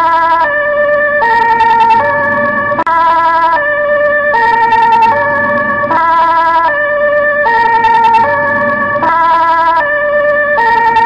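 Dutch ambulance two-tone siren sounding continuously, alternating between a high and a low note about every three quarters of a second.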